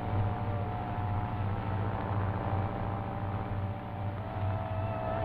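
Propeller aircraft's piston engine droning steadily in flight, a low throbbing hum with a faint wavering tone above it, heard on an old film soundtrack.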